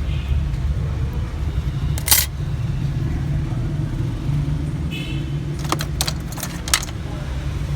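Steady low rumble of background noise, with one sharp click about two seconds in and a quick run of small clicks near the end.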